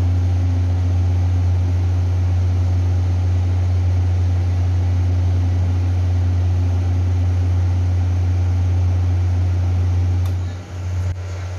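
Taiwan Railway Tze-Chiang express train standing at the platform with its equipment running: a loud, steady low hum. The hum drops briefly near the end, with a faint click.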